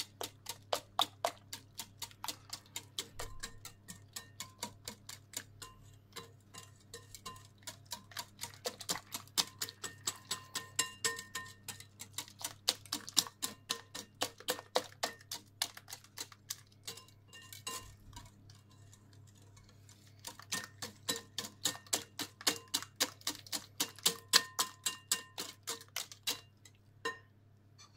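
Wire hand whisk beating eggs and flour in a glass bowl, the wires clicking against the glass about four times a second, with a short let-up a little past the middle and a stop near the end.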